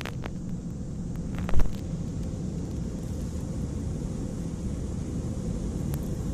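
Steady low mechanical rumble heard from inside a car in an automatic car wash bay, with a single sharp knock about one and a half seconds in.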